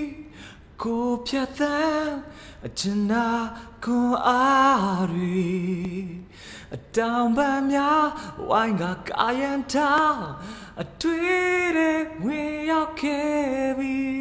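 A voice singing a melody alone, without instruments, in held notes with a few swooping slides in pitch.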